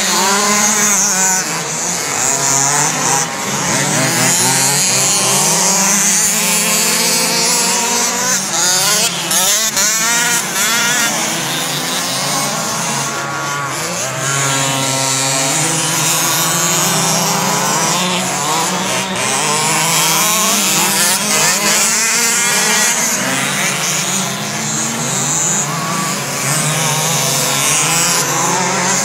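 Several radio-controlled sprint cars racing on a dirt oval, their motors overlapping and revving up and down in pitch as they go through the turns and down the straights.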